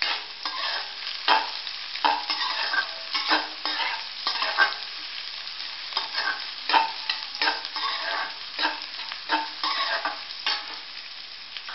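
Sliced onions frying in hot oil in a kadhai, sizzling, while a flat metal spatula stirs them with repeated scrapes against the pan.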